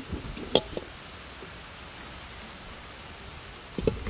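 Eggs being set down in a metal basin: a few light, sharp clicks of eggshell against shell and metal, about half a second in and again near the end, over a steady hiss.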